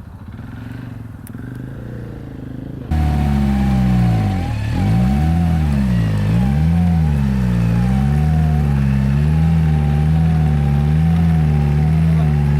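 An off-road vehicle's engine, quieter for the first few seconds, then after an abrupt cut running loud with its revs swinging up and down again and again, roughly once a second.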